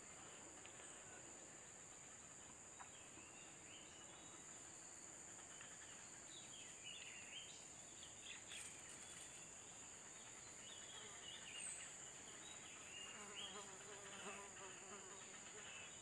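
Faint, steady high-pitched insect drone, with scattered faint chirps.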